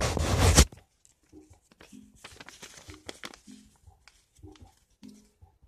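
Loud rustling and rubbing right against the phone's microphone as a hand passes over it, lasting under a second and cutting off suddenly. After that there are only faint, short pitched notes in the background.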